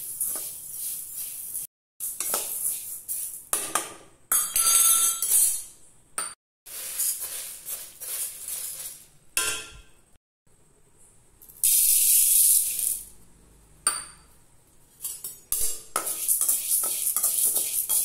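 A metal slotted spatula stirring and scraping dry seeds and lentils in an aluminium kadai as they dry-roast, a quick rattling scrape. It comes in several short stretches that cut off abruptly.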